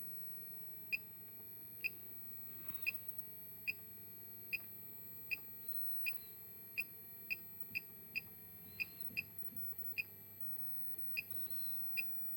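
Short single electronic beeps from a bench instrument's beeper, about sixteen of them at uneven intervals, as the load setting is stepped up toward 10 watts on the power supply's 12 V rail. A faint steady hum sits underneath.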